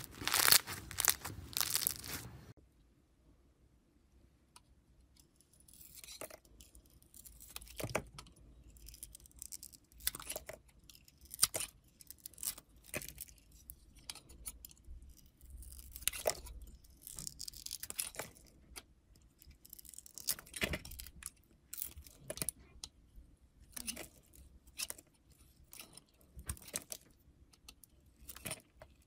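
Foam-bead slime squeezed by hand, crunching and crackling, for about two seconds. Then a metal blade cuts and chips pieces off a hard teal-and-glitter block, with separate sharp cracks and crunches at irregular intervals.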